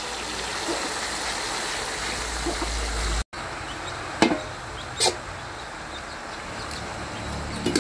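Fresh water spinach being tossed and mixed by hand in an aluminium wok, a steady rustling of leaves and stalks. After a cut, a metal spatula stirs the leaves and knocks twice against the wok, about a second apart.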